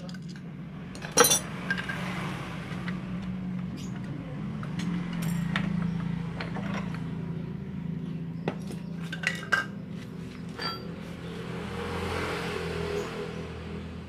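Metal clutch parts and hand tools clinking and clanking as a motorcycle engine's clutch assembly is taken off, with one sharp metallic knock about a second in and a cluster of clicks later on. A steady low hum runs underneath.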